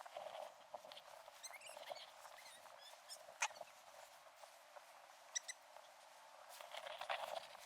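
Footsteps crunching through deep snow in an irregular patter. A few faint high chirps come about one and a half seconds in and again about five seconds in.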